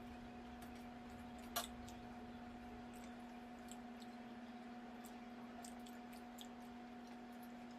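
A person chewing food, with small wet mouth clicks and one sharper click about a second and a half in, over a steady low hum.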